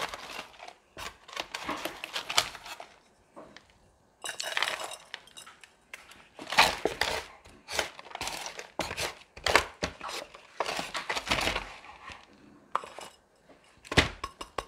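Plastic garden scoop scraping and stirring potting soil mixed with decomposed-granite grit in a plastic bin, then scooping the mix into a terracotta pot, in repeated rustling, scraping strokes. A sharp knock near the end.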